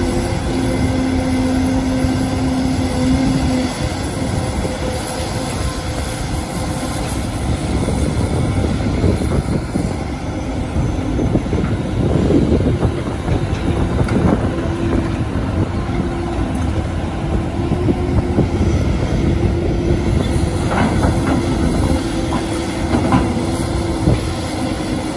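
Sumitomo Kobelco crawler excavator working under load: a steady diesel engine rumble with a hydraulic hum. It rises in loudness as the bucket digs, and near the end there are a few sharp knocks of rock in the bucket.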